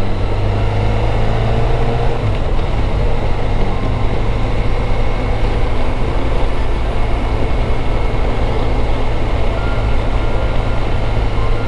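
Motorcycle engine running steadily at road speed, with wind and road rush, heard from on the moving bike.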